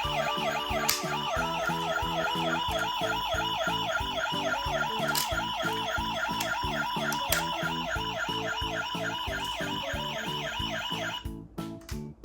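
Electronic ambulance siren in a fast up-and-down warble that cuts off about a second before the end, over background music with a steady beat.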